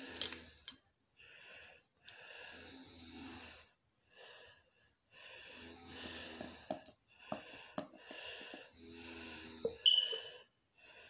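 A spoon stirring granulated sugar and vitamin E oil in a bowl: repeated scratchy scraping strokes, alternating long and short, with a few sharp clinks against the bowl.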